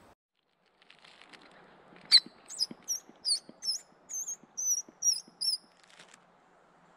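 A small animal calling: a quick run of about nine high, sweeping chirps, starting about two seconds in and stopping shortly before the end.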